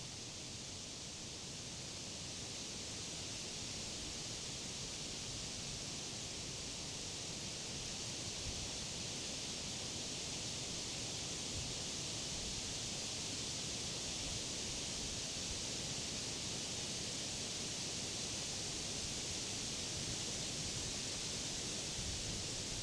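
Wind blowing through leafy summer trees and grass, a steady rustling hiss of leaves that swells a little over the first several seconds and then holds.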